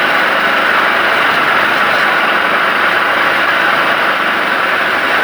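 Woodturning lathe running steadily, a constant rushing mechanical noise with no change in speed.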